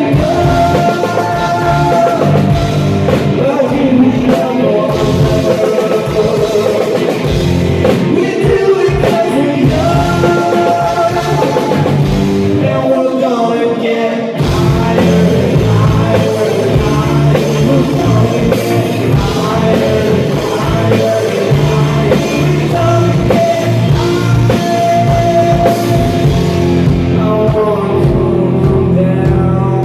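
Loud live rock band playing with a lead singer: guitar, bass and drums. The low end drops away about halfway through, then the full band comes back in heavier.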